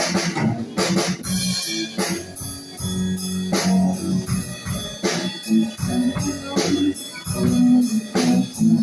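Live band playing: a Ludwig drum kit keeps a steady beat of about two hits a second under chords from a hollow-body electric guitar.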